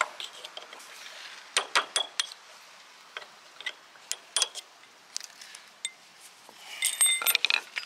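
Sharp metal clicks and taps of a screwdriver and hammer working an E-clip off the motor shaft at the end of an awning roller tube. Scattered single clicks, then a quick run of louder, ringing metallic taps near the end.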